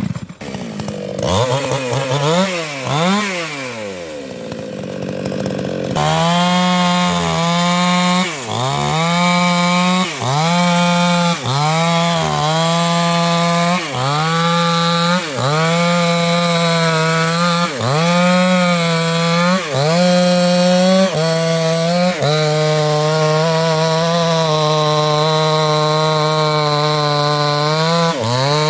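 New West 628 two-stroke chainsaw with a 24-inch bar, revved up and down for the first few seconds. It then runs at high revs cutting into a thick sengon trunk, the engine note dipping and recovering every second or two as the chain bites, steadier near the end.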